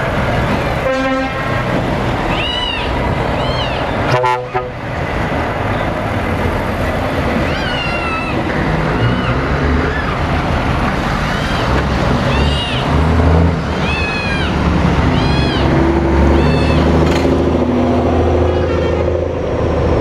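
Diesel engines of heavy trucks rumbling as they pull away one after another, the low rumble heavier in the second half as a truck comes close. Short truck horn blasts sound a couple of times in the first few seconds, with many brief high chirps over the engine noise.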